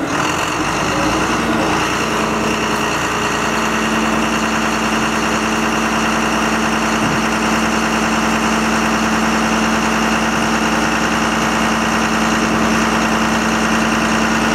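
Diesel engine of a fire-brigade aerial platform truck running steadily with a constant hum while it powers the boom's hydraulics.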